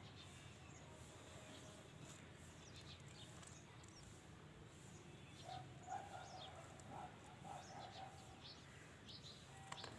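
Near silence: faint outdoor ambience with a few short bird chirps in the second half.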